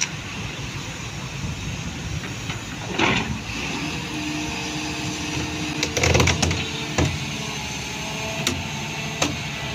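Cat 320D2 hydraulic excavator running steadily as it swings a concrete tetrapod hanging on a chain from its bucket. Several short, sharp clanks and knocks cut through, the loudest cluster about six seconds in.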